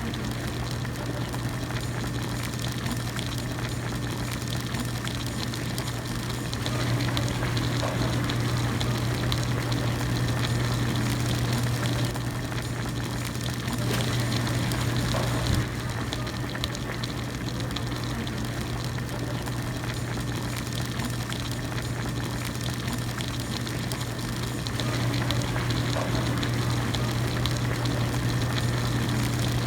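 Hot pot broth at a rolling boil, a steady bubbling and seething, with a constant low hum underneath that swells louder for several seconds at a time, three times.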